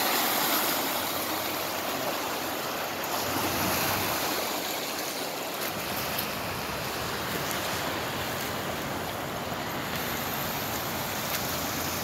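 Steady rushing and splashing of floodwater as vehicles drive through a deeply flooded street.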